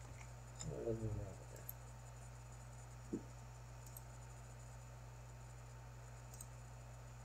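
A few faint computer mouse clicks over a steady low electrical hum, with a brief wordless voice sound about a second in and a soft knock about three seconds in.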